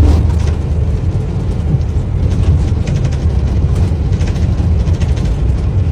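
Airliner landing rollout just after touchdown: a heavy, steady low rumble of wheels on the runway and engines, which rises sharply at the start.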